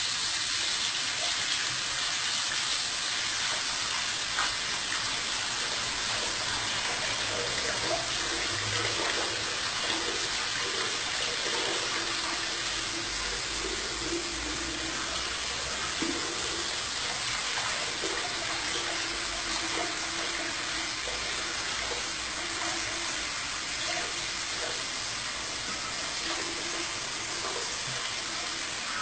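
Bidet tap running steadily, its stream splashing into the ceramic bowl.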